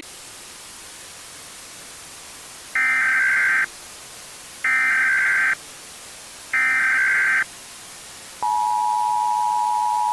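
Emergency Alert System activation: three short SAME header data tones, each just under a second and about a second apart, then the steady two-tone attention signal starting about eight seconds in, over a faint hiss.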